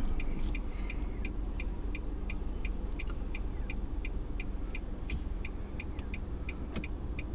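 A car's turn-signal indicator ticking steadily inside the cabin, about two to three ticks a second, signalling a right turn. Under it is the low hum of the engine idling while the car waits.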